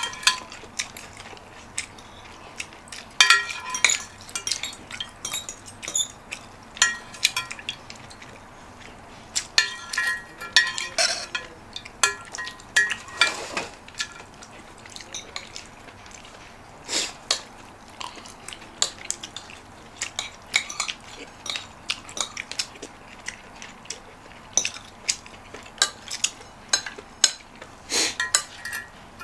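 Metal spoon and fork clinking against a plate and soup bowl while eating, in scattered, irregular clinks throughout.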